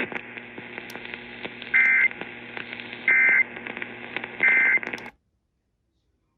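Three short bursts of Emergency Alert System SAME data tones, the end-of-message signal that closes a warning, sounding a little over a second apart over weather-radio receiver hiss. About five seconds in the audio cuts off to silence.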